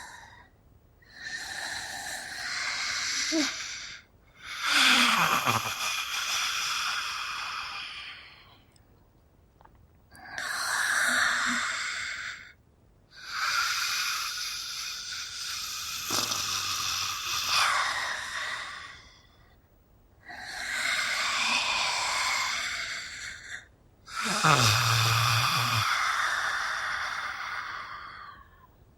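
Mummy monster sound effects: a series of about six breathy, rasping creature groans and hisses, each a few seconds long with short silent gaps between them. A couple of them slide down in pitch.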